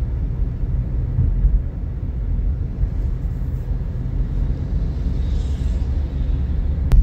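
Toyota Corolla driving on the road: a low, steady rumble of engine and road noise. A brief hiss comes about five seconds in and a sharp click just before the end.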